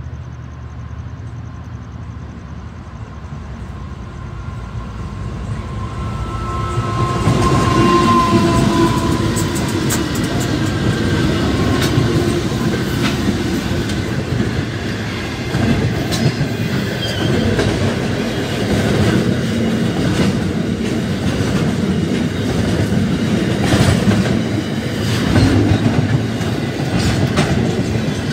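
Pacific National diesel-electric freight locomotives approaching and passing close by, their engine rumble building over the first seven seconds. Then a long string of container wagons rolls past, wheels clattering over the rail joints with repeated clicks.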